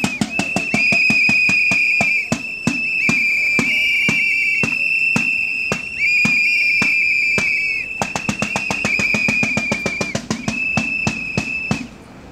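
Several hand-held whistles blown together in long, steady, high-pitched blasts, over fast rhythmic beating at about four to five strokes a second.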